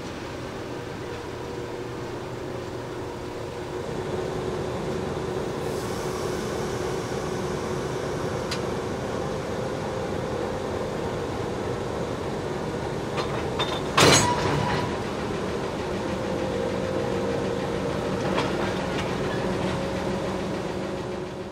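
Alco diesel locomotive engines running with a steady hum. About two-thirds of the way through comes one loud, sharp metallic clank that rings briefly, with a few fainter clicks around it.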